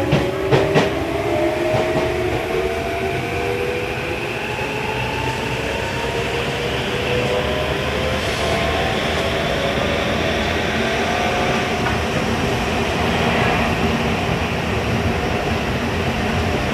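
Tokyu 1000 series train's GTO-VVVF inverter and traction motors whining as the train gathers speed, several tones rising slowly in pitch over the steady rumble of wheels on rails, heard from inside the car. Two sharp clicks come about half a second in.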